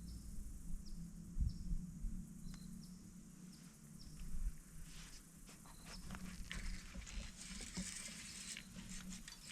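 Outdoor ambience on the water: short, high, falling chirps repeating every half second or so over a low rumble, with scattered light knocks and a hiss that swells in the second half.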